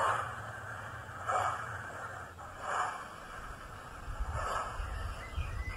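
Model steam locomotive sound from a Hornby TTS sound decoder through a small sugar cube speaker: slow exhaust chuffs about every second and a half, four in all, as the OO gauge A1 Tornado creeps along. There is a steady low hum underneath, and a low rumble builds in the last couple of seconds.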